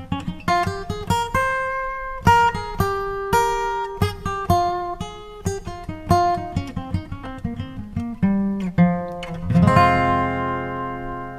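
Background music: acoustic guitar picking a melody of single plucked notes, with a fuller chord ringing out about ten seconds in.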